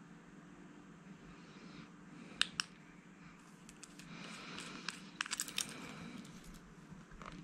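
Metal flashlight body being unscrewed and taken apart by hand: two sharp clicks, then a run of clicks, rattles and scraping as the tail cap comes off and the AAA battery holder slides out.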